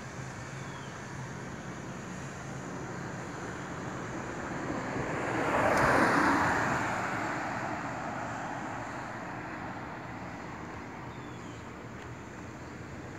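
A car drives past, its noise swelling to a peak about six seconds in and fading away slowly, over a steady background of wind and traffic noise.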